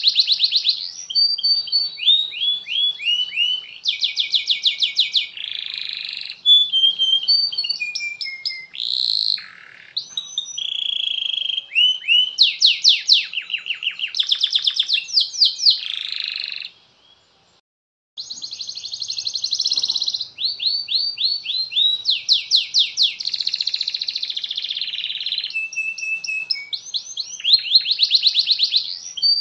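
Domestic canary singing a long, continuous song of high, fast rolling trills and rapid runs of repeated notes, phrase after phrase. The song breaks off for about a second and a half just past the middle, then carries on.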